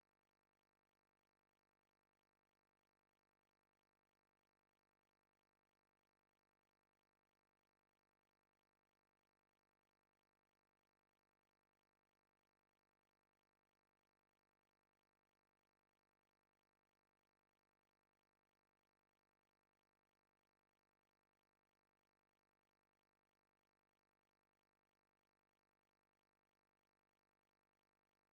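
Near silence: a faint, steady electronic hiss with no distinct sound.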